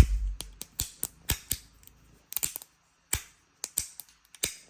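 A fidget slider's buttons and pivot clicking as it is pressed and slid around by hand: about a dozen sharp, irregular clicks, the first the loudest.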